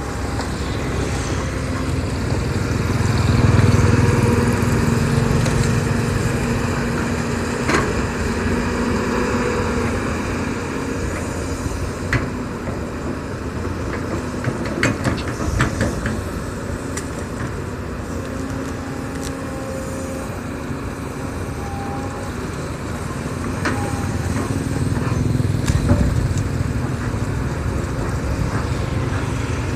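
Diesel engine of a Volvo EC210B hydraulic excavator running steadily as it digs, rising in loudness under load twice, early and near the end, with a few sharp knocks scattered through the middle.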